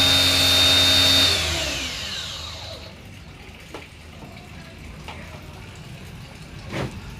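A small electric motor running with a high-pitched whine, switched off about a second in and winding down with a falling pitch over roughly a second and a half, followed by a few faint knocks.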